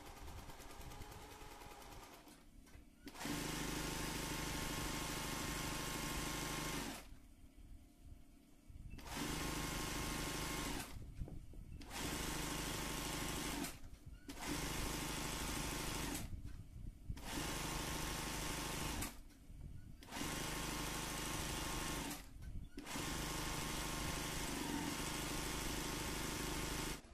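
Singer 20U industrial zigzag sewing machine stitching free-motion embroidery. It runs in about seven bursts of two to four seconds with brief stops between them, and its motor hums steadily under the rapid needle stitching.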